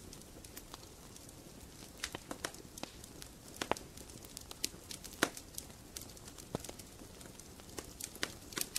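Faint, irregular crackling: scattered sharp clicks, a few of them louder, over a low steady hiss.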